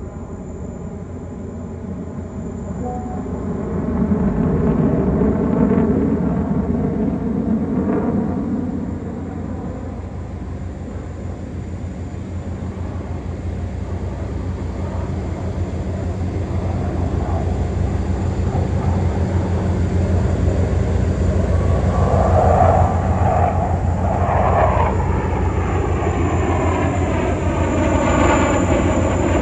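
Jet engines of a three-ship formation of fighter jets flying overhead, a continuous rumble. It swells about four seconds in, eases off, then builds again through the second half, with sweeping tones near the end as the jets pass.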